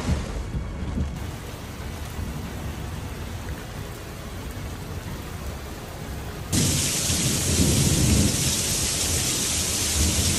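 Rain falling during a thunderstorm, with low rumbling thunder. About six and a half seconds in, the rain abruptly becomes much louder and harsher, with a heavier roll of thunder underneath.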